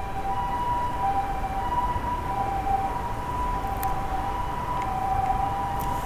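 Emergency-vehicle siren alternating between two pitches in a hi-lo pattern, each tone held for about half a second, the two-tone call of a Japanese ambulance. A low traffic rumble runs beneath it.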